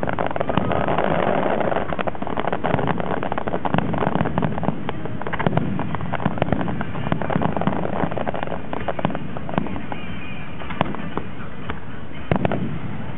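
Fireworks display: a dense run of bangs and crackles from aerial shells bursting in quick succession, thinning to a few separate bangs in the last few seconds.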